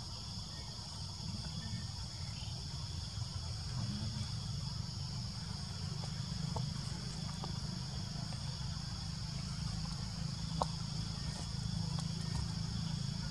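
Steady high-pitched chorus of forest insects, several shrill tones held unbroken, over a low rumble. There is a single sharp click about ten seconds in.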